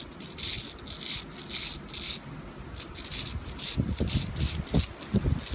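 Fine copper winding wire being pulled off a small motor coil by hand, rubbing and scraping in a run of short strokes, then rustling with a few light knocks in the second half.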